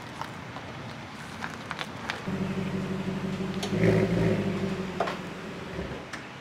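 BMW E39 540i's starter motor cranking the V8, which has no fuel or spark, with the car in gear so the starter pulls it forward. It is a steady hum that starts suddenly about two seconds in, swells near the middle and stops shortly before the end.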